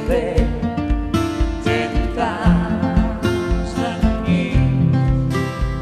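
Live band music: guitar, bass and drums, with a steady kick-drum beat about twice a second under a wavering melody line.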